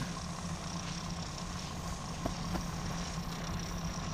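A 1940s Powermatic wood lathe running steadily, its motor humming, while a turning tool takes slow, light cuts on the spinning segmented bat blank, which is prone to chatter.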